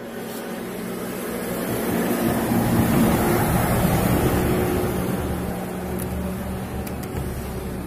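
Engine noise of a passing motor vehicle, swelling to a peak about three seconds in and then fading.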